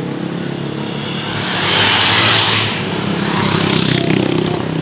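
A large diesel vehicle, most likely a tour bus, running past with a steady engine note; its tyre and air noise swells to a peak about two seconds in, then eases off.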